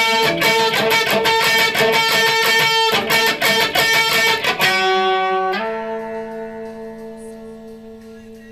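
Electric guitar strumming chords in a steady, driving rhythm. About four and a half seconds in the strumming stops on a struck chord, and a second later a final chord is left to ring and slowly fades.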